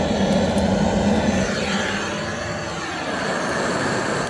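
A steady engine drone, with a whine that falls in pitch about halfway through, then cuts off abruptly.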